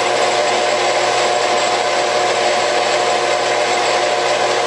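Metal lathe spinning aluminum round stock at raised speed while a homemade cone-cutting attachment takes a slow final finishing cut: a steady hiss of cutting over the lathe's even multi-tone whine.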